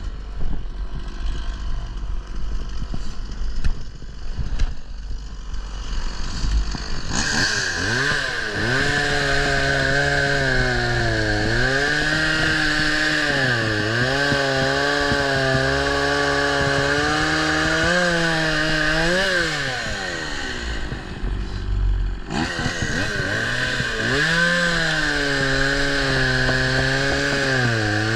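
Chainsaw running low for several seconds, then revving up and cutting through wood, its pitch dipping and recovering as the chain bites. It eases off briefly about twenty seconds in, then revs up and cuts again.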